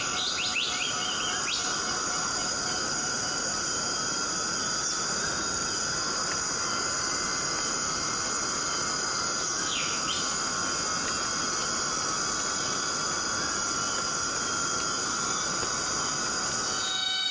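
Tropical rainforest insect chorus: several steady high-pitched drones from cicadas and crickets, over the even hiss of steady rain. Short swooping bird calls come near the start and again about ten seconds in.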